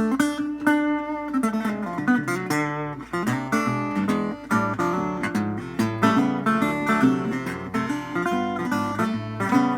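1932 National Triolian single-cone resonator guitar being played: a steady run of plucked notes and strums, several notes a second.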